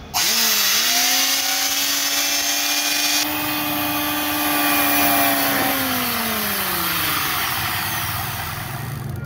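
GAOCHENG GC-H82P electric planer's brushed motor starting, rising to speed and running with a steady whine, then winding down with falling pitch from about six seconds in. Its armature is damaged, throwing heavy sparking at the commutator and wearing the carbon brushes fast.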